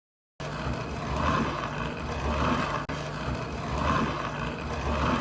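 A motor or machine running steadily, with a low hum and a higher swishing swell that repeats about every second and a half. It starts abruptly and dips out for an instant about three seconds in.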